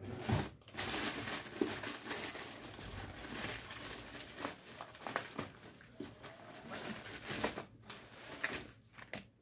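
Rustling and crinkling handling noise close to the microphone, with many small clicks and knocks, easing off near the end.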